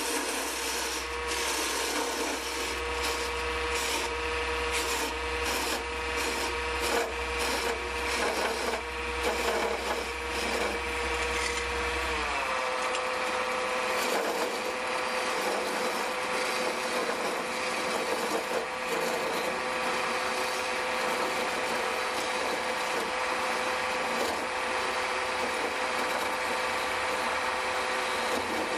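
Electric mini wood lathe running with a steady motor whine while a hand-held chisel cuts a spinning wooden spindle, the steel scraping and shaving the wood in repeated short strokes, most often in the first half. About halfway through a low hum stops and the motor tone dips slightly in pitch.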